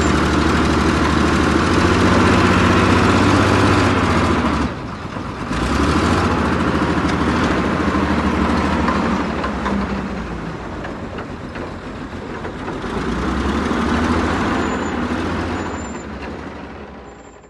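Wheel loader's diesel engine running hard while it works, its pitch rising and falling with the throttle, with a short drop about five seconds in.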